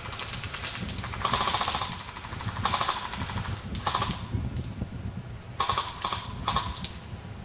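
Airsoft guns firing on full auto in several short rattling bursts. The longest comes about a second in, and three quick bursts follow near the end.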